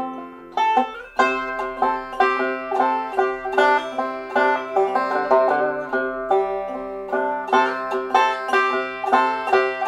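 Instrumental background music: a steady stream of quickly plucked string notes, briefly thinning out in the first second.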